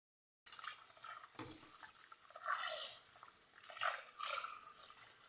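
Running tap water over rice in a sink, with splashing as the grains are rinsed to wash off the white starch. It starts about half a second in.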